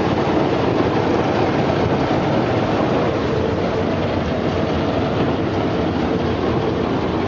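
Brush-roller vegetable washing and peeling machine running, its rollers turning with potatoes and carrots tumbling against the brushes: a steady, dense mechanical rattle.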